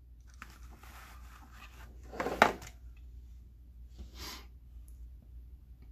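Faint handling sounds as a small plastic sensor module is lifted out of its foam box insert: soft rubbing and rustling, a louder scrape with a sharp click about two and a half seconds in, then a brief soft hiss about four seconds in.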